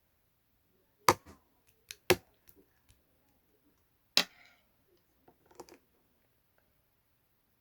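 A series of sharp clicks and knocks, three loud ones about a second or two apart, with softer taps between and a small cluster near the end.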